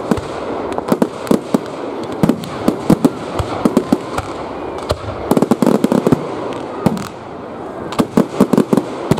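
Aerial fireworks going off in a display: a rapid run of sharp bangs and crackles from bursting shells, coming thickest about five seconds in and again near the end.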